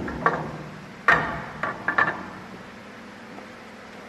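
A handful of knocks and clinks from metal parts of a die-cutting cylinder being handled and fitted together, bunched in the first two seconds, then only a steady low hum.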